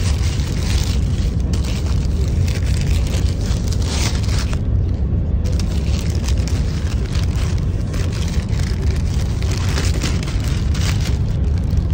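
Paper sandwich wrapper crinkling and rustling as it is opened, in short irregular crackles, over a steady low rumble of a moving vehicle.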